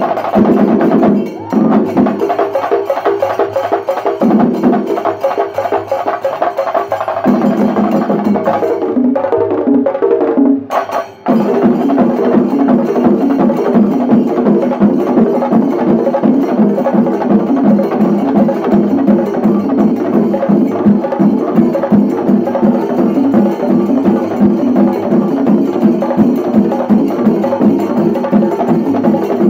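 Shinkari melam: a group of chenda drums beaten with sticks in fast, dense strokes, with the ensemble's ilathalam cymbals. The playing drops out briefly about ten seconds in, then resumes as a steady, driving rhythm.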